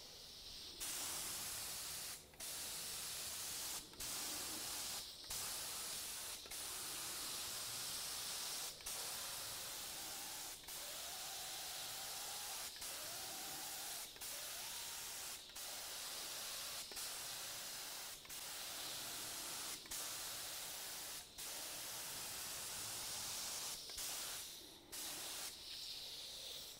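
Paint spray gun spraying a coat of primer filler: a steady hiss in passes, cut by brief stops every second or two.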